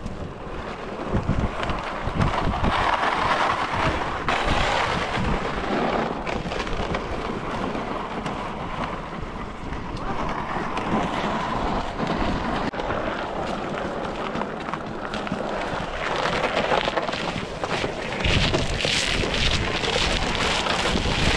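Wind buffeting the microphone in rumbling gusts. A run of short crackling noises comes near the end.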